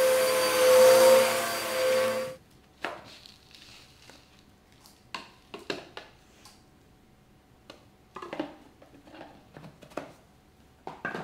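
Bissell upright vacuum cleaner running with a steady whine, cut off abruptly about two seconds in. Then faint scattered crackles and taps as the dust cup is emptied, fluffy lint and crunchy debris dropping onto the rug.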